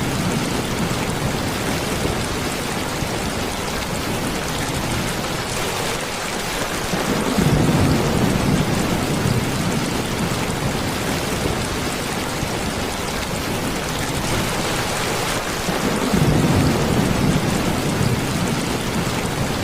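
Steady rain falling, with two low rolls of thunder about a third of the way in and again near the end.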